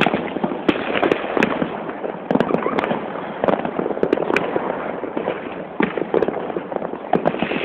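Fireworks going off: a dense, unbroken run of sharp bangs and crackles.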